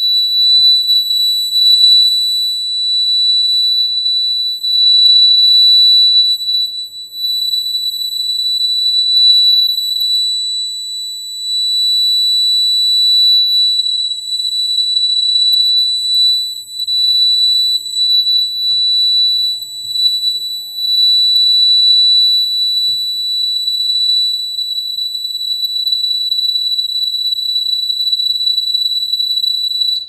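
Piezo alarm buzzer sounding a continuous, high-pitched steady tone, triggered by a PIR motion sensor through a relay; it stops abruptly near the end.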